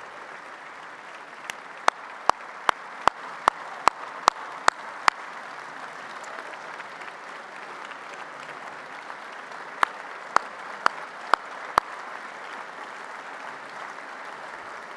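Audience applauding steadily, with a run of loud single hand claps close to a microphone, about two to three a second, a couple of seconds in, and a second shorter run around ten seconds in.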